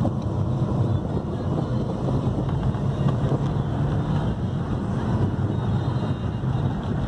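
Inside a Fiat Stilo driving over a washboard dirt road: a continuous tyre and road rumble full of small rapid knocks and rattles, which the owner puts down to the closed sunroof, not knowing whether a rubber seal or something else is worn.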